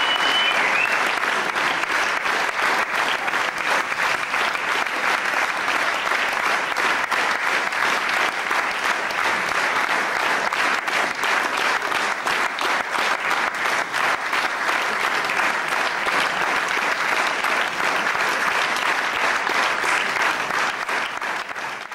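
Audience applauding steadily: dense clapping from a full theatre house. A short high whistle sounds about a second in.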